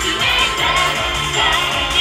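Live J-pop: female vocalists singing into microphones over a pop backing track with a steady beat, amplified through stage speakers.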